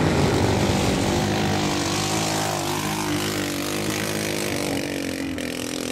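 Pickup truck engine held at high revs as the truck drives through mud, with a brief dip in pitch about halfway through before it steadies again.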